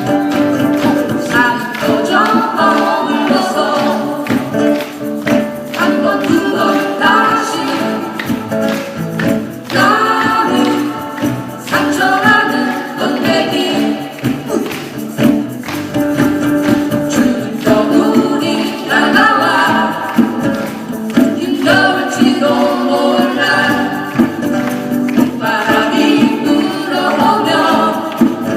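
Live band music: a melody line moving over sustained chords and a steady percussion beat.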